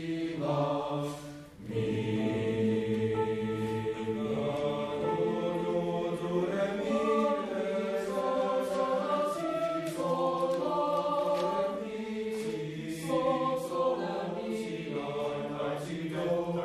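A boys' school choir singing a piece in parts, holding sustained notes that move in pitch, with a brief break for breath about one and a half seconds in.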